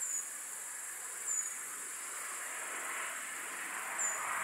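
Quiet forest ambience: a steady high insect drone with a few short, high falling chirps, and a soft buzzing that swells near the end.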